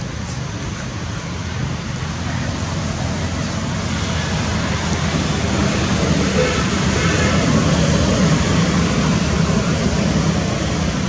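Steady low rumbling background noise with no distinct calls, swelling a little louder around the middle.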